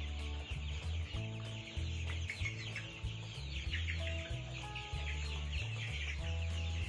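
A flock of month-old young cockerels peeping and chirping without pause, many short high calls overlapping. They are on their fifth day of treatment for snot, and the rattling 'cekrek' breathing is much reduced.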